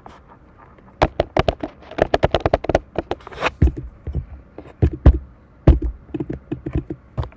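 Rapid, irregular clicks, taps and knocks of objects being handled and rummaged through.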